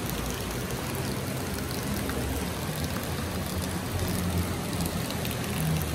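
Shallow river water rushing over a flat rock bed, a steady, even hiss.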